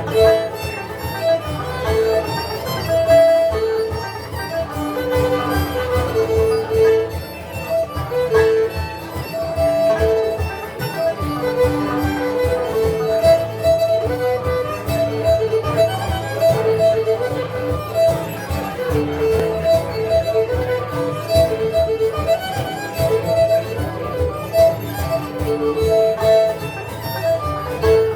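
Live folk band playing an instrumental Scottish tune: strummed 12-string guitar and banjo under a sustained melody line of held notes.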